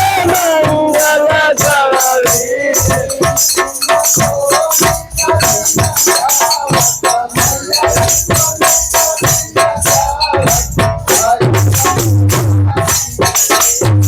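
Indian devotional music with fast, dense shaker-and-tambourine-type percussion under a melody that wavers in pitch, and heavy bass beats near the end.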